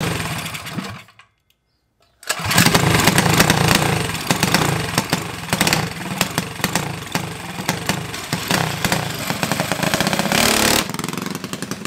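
Harbor Freight Predator 212 single-cylinder four-stroke engine on a mini bike running loud, with rapid firing pulses; it dies away about a second in, falls silent, then runs again abruptly from about two seconds in.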